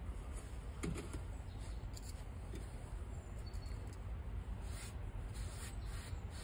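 Faint scratching of a paintbrush's wet bristles stroking rust neutralizer onto a rusty steel plate, a few light strokes about a second in and more near the end, over a steady low hum.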